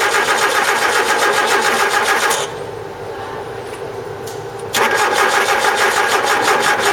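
Nissan Primera's engine being cranked over by its starter motor with a fast, even pulsing, in two bursts of two to three seconds each: the first stops abruptly about two and a half seconds in, and the second starts almost two and a half seconds later.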